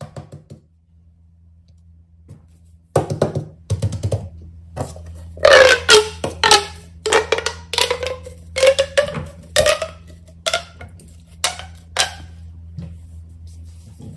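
Fidget toys being handled: a run of about a dozen short, hollow pops and knocks starting about three seconds in, over a steady low hum.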